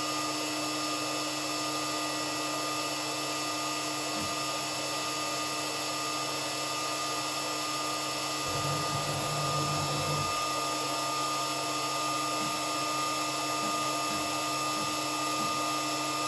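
Spinogy X22 CNC router spindle spinning a 10 mm three-flute end mill at about 17,500 RPM: a steady high whine made of several fixed tones. From about eight and a half to ten seconds a lower hum joins it.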